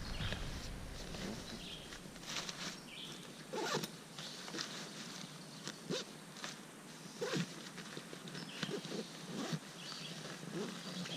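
Intermittent short scratchy strokes of a zipper and nylon fabric being handled while the tent's carry bag is packed.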